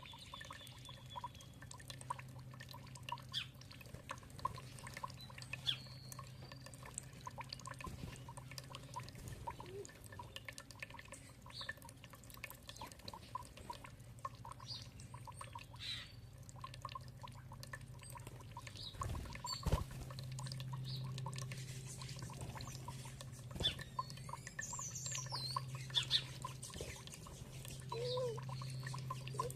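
Birds chirping now and then over dripping, trickling water, with a low steady hum underneath that grows stronger about two-thirds of the way through.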